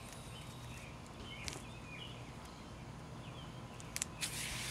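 Quiet background with a few faint bird chirps and light taps, then near the end a brief rustling hiss of masking tape being handled and pressed down.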